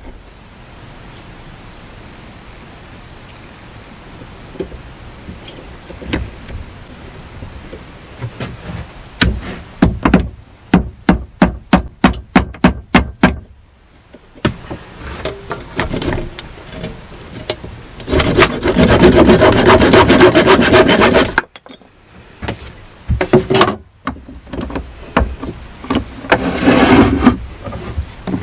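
Hand-tool work on a wooden handle: a run of regular rasping strokes, about two a second, of a saw or file on the wood. Later comes a louder few seconds of continuous rubbing that stops abruptly, and a shorter burst near the end.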